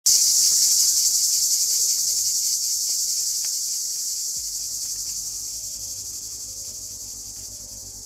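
Cicadas singing: a shrill, steady, high-pitched buzz that starts at full strength and fades gradually. Soft low music notes come in about halfway through.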